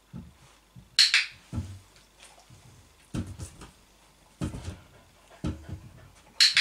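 Two sharp clicks from a dog-training clicker, about a second in and again near the end, marking the moment the dog rests its chin on the chair seat. Several soft low thuds come in between.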